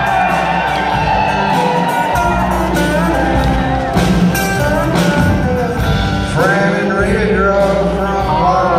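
A country band playing live with a man singing lead, acoustic guitars, upright bass and drums, heard from the audience seats in a concert hall.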